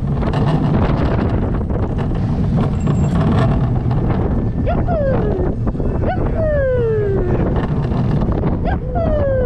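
Family roller coaster train running along its track, heard from a seat on board: a steady rumble of the wheels with wind on the microphone. Riders let out three long, falling whoops, about halfway through, a second later, and near the end.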